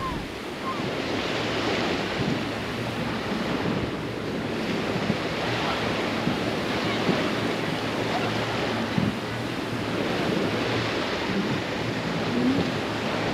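Beach ambience: small sea waves washing steadily onto the shore with wind, and faint scattered voices of beachgoers.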